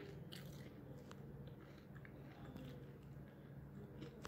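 Faint chewing and crunching of a cat eating, a few soft clicks scattered through, over a low steady hum.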